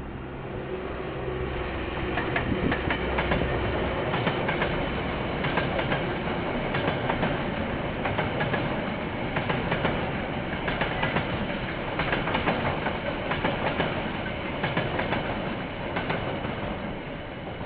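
A KiwiRail diesel train passing: the locomotive's engine hum is heard during the first few seconds, then a long steady rumble of wagons with wheels clicking over the rail joints.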